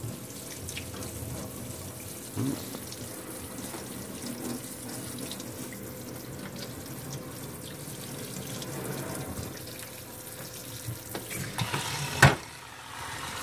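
Kitchen sink sprayer hissing steadily as its water spray rinses naval jelly rust remover off an ornate cast-iron barber chair part in a stainless steel sink. A single sharp knock near the end, after which the spray briefly drops away.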